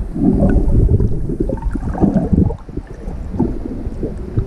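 Underwater water noise from a swimming freediver: low surging rushes of water with gurgles, loudest just after the start and again around two seconds in.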